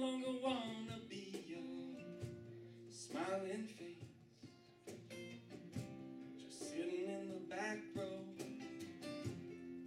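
Live acoustic band music: several acoustic guitars strumming and picking, with a singing voice coming in for a few phrases.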